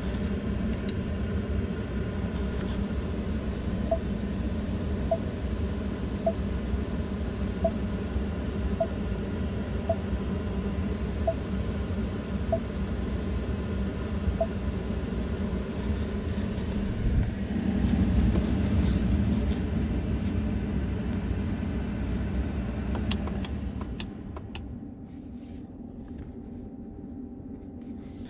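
A 2022 Ford F-150 Lightning electric pickup on the move, heard from inside the cab: a steady low rumble of road and tyre noise with no engine running. A faint tick comes about once a second for about ten seconds. The rumble drops and quiets about 24 seconds in as the truck slows.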